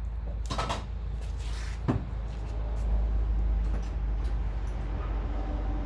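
Small metal fittings and tools being handled: a few sharp clicks and knocks, the sharpest about two seconds in, over a steady low rumble.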